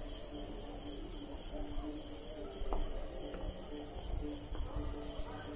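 Steady, high-pitched insect chirping, with a low hum and rumble underneath and a faint click near the middle.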